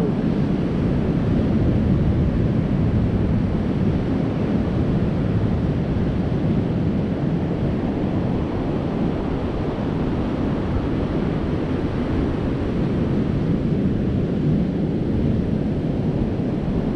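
Steady wind noise on the microphone mixed with surf washing onto the beach, a continuous low rush.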